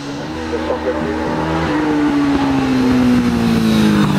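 Racing motorcycle engine running at high revs, getting steadily louder, its pitch falling slowly through the second half.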